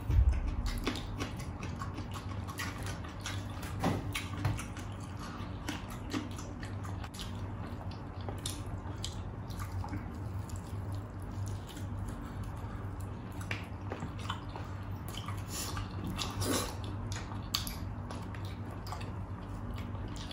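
Close-miked eating sounds of two people eating rice and meat with their hands: wet chewing, lip smacking and many small clicks, over a steady low hum. There is a low thump right at the start.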